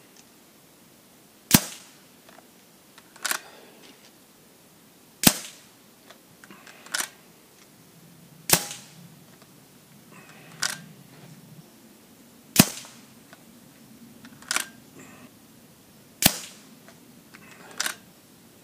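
Weihrauch HW100 sub-12 ft-lb PCP air rifle firing five sharp shots, one every three to four seconds, with a quieter click between each shot and the next.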